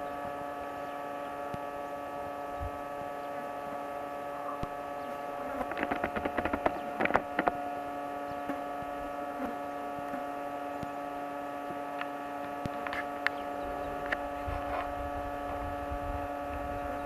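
Steady hum made of several fixed tones that do not change in pitch. About six to seven and a half seconds in there is a cluster of clicks and rustling, and a few single sharp ticks come later.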